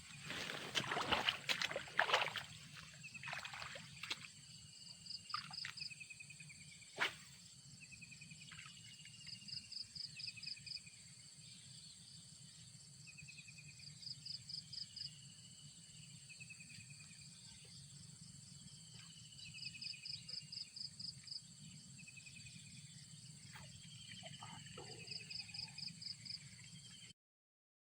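Outdoor waterside ambience with water splashing and sloshing in the first two seconds and a sharp click about seven seconds in. Over a steady low hum, a short fast trilling call repeats every four to five seconds, with falling chirps between.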